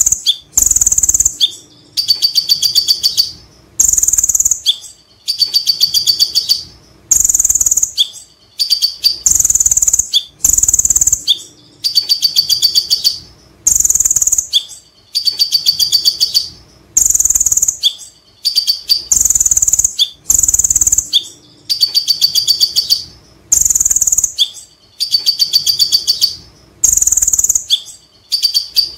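Male kolibri ninja (van Hasselt's sunbird) singing in full voice. It repeats rapid, high-pitched trilling phrases about a second long, one after another every second or two, with short gaps between them.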